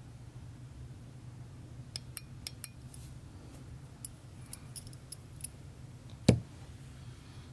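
A scatter of light clicks and ticks, then one much louder sharp click a little past six seconds in, over a steady low hum.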